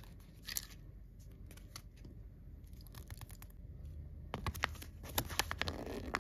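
Handling of a Kinder surprise egg's plastic toy capsule and its thin paper instruction leaflet: a few light clicks and taps, then crinkling and rustling from about four seconds in as the folded leaflet is opened out.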